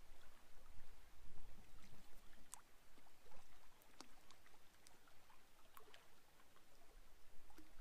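Small waves lapping at a rocky lake shore, with a low rumble of wind on the microphone and a few faint ticks.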